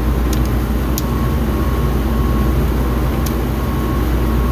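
Nugget ice machine running through a descaling clean: a steady low mechanical hum, with a faint high whine that comes and goes and a few light clicks.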